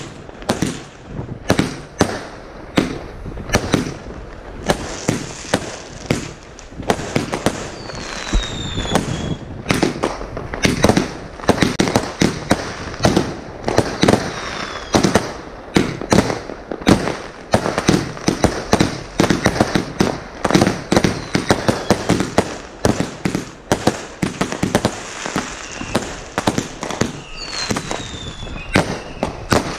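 Kimbolton Icarus Sun 130-shot firework cake (25/30 mm) firing shot after shot: a rapid, continuous string of launch thumps and star bursts. Falling whistles sound twice, about a third of the way in and near the end.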